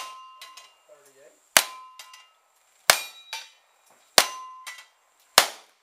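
Single-action revolver fired one-handed at steel targets: a shot at the very start and four more about 1.3 s apart. The steel plates ring briefly after the hits.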